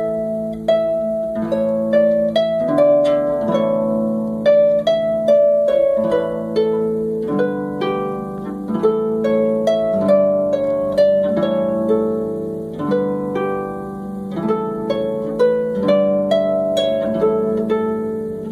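Harp-like plucked-string music: a steady flow of plucked melody notes over ringing chords.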